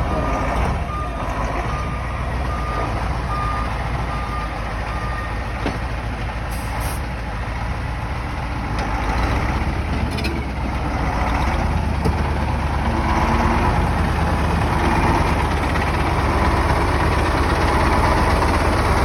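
KamAZ 6x6 truck's diesel engine running steadily, with a reversing alarm beeping at an even pace for the first five seconds or so. The engine grows a little louder from around twelve seconds in.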